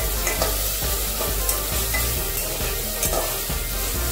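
Onions and ginger-garlic paste sizzling in hot oil in an aluminium pressure cooker, with a little water added, while a metal spatula stirs and scrapes the pot. The sizzle is a steady hiss, broken by a few sharp scrapes of the spatula on the metal.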